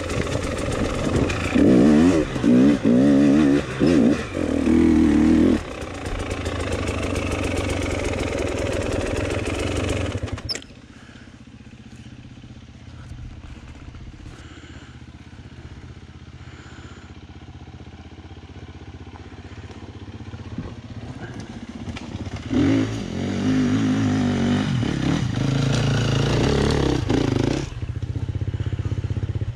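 Enduro motorcycle engine revving hard, its pitch rising and falling under throttle. About a third of the way in it drops abruptly to a quieter, steadier running sound. Near the end it comes back loud with more revving.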